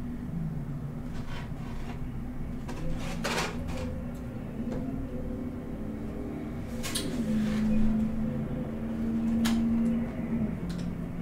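Food and a styrofoam takeout clamshell being handled at a table: a few scattered knocks and rustles as fried chicken pieces are set down and food is scooped with a plastic fork. A steady low hum runs under it and grows louder for about three seconds after the middle.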